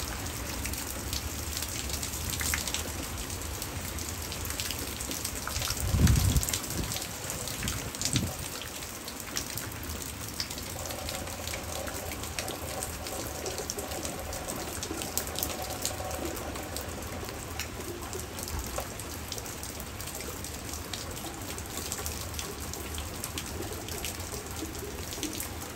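Hard rain falling: a steady hiss with many individual drops ticking close by. A brief low rumble sounds about six seconds in, and a smaller one about two seconds later.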